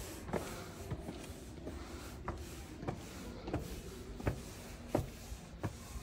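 Footsteps of a person walking at an even pace, about three steps every two seconds, over a steady low rumble.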